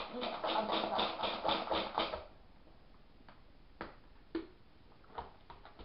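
Plastic BeanBoozled game spinner clicking rapidly as it spins, about six or seven clicks a second for two seconds, then stopping. A few single light clicks follow as it is handled.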